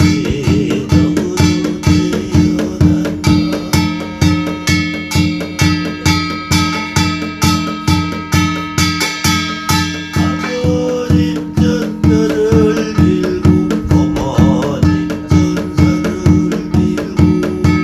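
Korean shamanic barrel drum (buk) struck with a stick in a steady, even beat. A wavering, reedy melody plays over it, a kazoo standing in for the piri.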